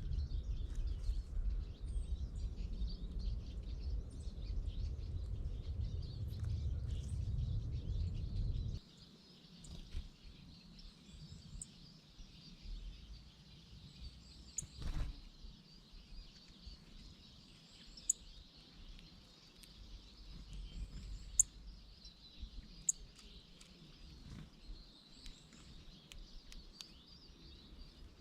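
Small wild birds chirping: scattered short, sharp high notes, a few single chirps spaced seconds apart, over a faint steady hiss. A low rumble fills the first nine seconds or so and then stops abruptly.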